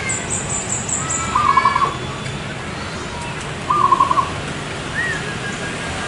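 Zebra dove (perkutut) cooing: two short rolling, trilled coo phrases, a little over a second in and again near four seconds in. Higher chirps and whistled notes sound around them.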